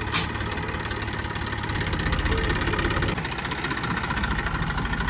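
An engine idling steadily with an even throb, with a brief sharp tick just after the start.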